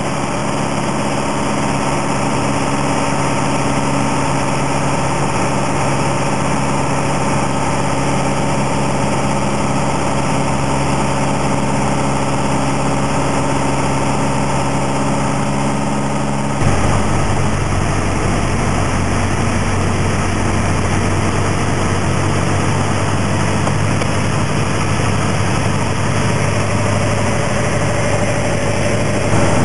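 Cabin noise of a Piper PA-28 light aircraft: the piston engine and propeller drone steadily. Just past halfway the drone changes suddenly to a deeper, heavier tone.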